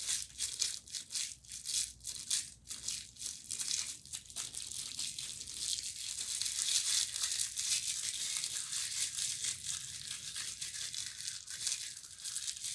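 A snack wrapper being crumpled in the hands, crinkling and crackling. The crackles come sharp and separate at first, then denser and more even after about five seconds.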